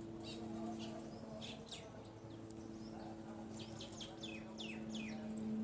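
Small birds chirping with many short, high, downward-sweeping calls, over a steady low hum.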